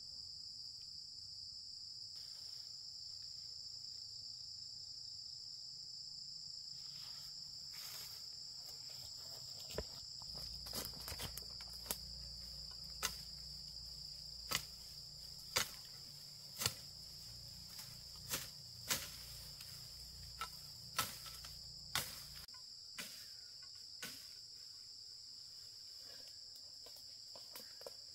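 A steady, high-pitched insect chorus. From about ten seconds in comes a series of a dozen or so sharp knocks, roughly one a second, over a low rumble that stops near the end.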